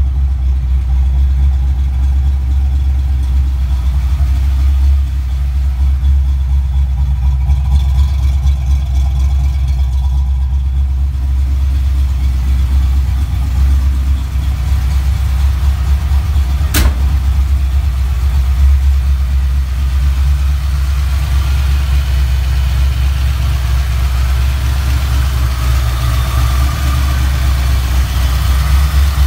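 Supercharged Ford 302 (5.0 L) small-block V8 idling steadily with a deep, even rumble. One sharp click comes about two-thirds of the way through.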